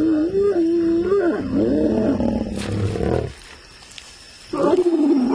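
A mating pair of lions growling and snarling in long, wavering vocal calls: one bout that breaks off after about three seconds, then a fresh growl starting near the end.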